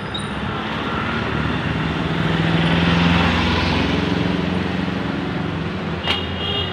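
Road traffic, with a motor vehicle's engine passing: its noise and low hum swell to their loudest about three seconds in, then ease off. A brief sharp sound with a high ringing tone comes near the end.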